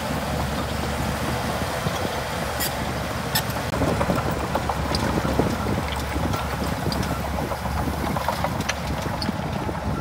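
Shantui DH17C2 bulldozer's diesel engine running steadily under work, with scattered sharp clicks and cracks over it.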